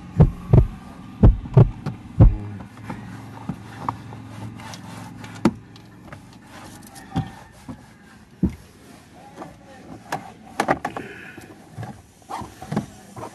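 A run of loud low thumps, about two or three a second, over a low hum for the first two and a half seconds, then a microfiber cloth rubbing over a car's plastic dashboard and steering wheel with scattered light knocks and clicks.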